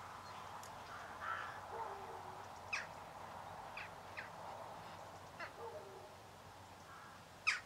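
Faint distant calls of crow-family birds: scattered short, sharp calls and a few caws over a quiet field background, the loudest a sharp call near the end.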